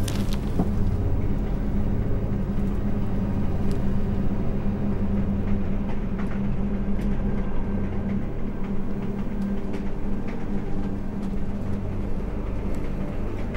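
Steady low rumble and hum of a passenger train carriage in motion, heard from inside the car.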